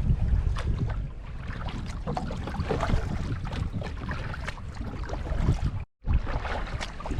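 Kayak paddling: water splashing and trickling off the paddle blades, with wind buffeting the microphone as a low rumble. The sound cuts out for an instant near the end.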